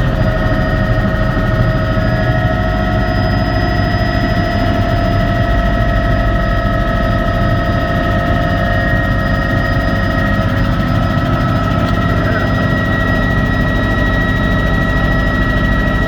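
Helicopter in flight heard from inside its cockpit: a steady engine and rotor drone with several constant whining tones over it.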